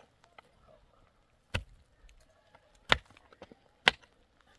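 Pick striking hard, stony soil while a trench is dug, three sharp blows roughly a second apart with small clicks of loose earth and stones between them.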